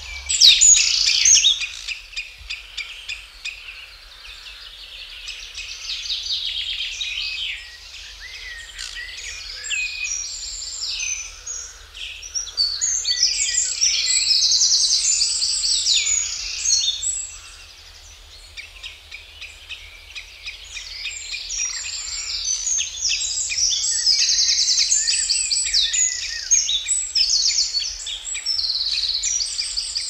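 Common redshank calling over and over: a long run of high, rapidly repeated calls that swell and fade, loudest in the first couple of seconds and again in the middle and latter part, with quieter stretches around four and eighteen seconds in.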